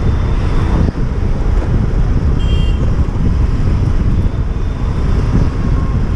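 Wind buffeting the microphone of a moving motorbike, over the rumble of the bike and street traffic. There is one short high beep about two and a half seconds in.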